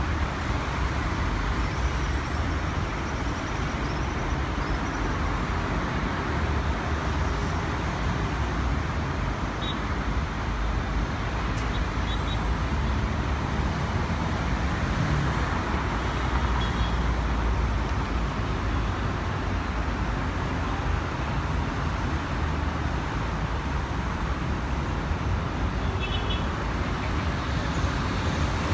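Steady rumble of engines and traffic, with nothing standing out above it.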